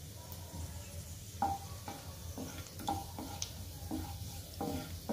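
Cumin seeds and whole garam masala (cardamom pods, cinnamon, black peppercorns) sizzling and crackling in hot oil in a kadhai. From about a second and a half in, a spatula stirs them, scraping the pan in short strokes about twice a second.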